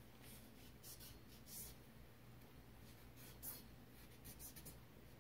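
Faint, short scratchy strokes of a cleaning swab rubbing against the metal of a Glock 22 pistol slide, wiping carbon from around the firing pin block.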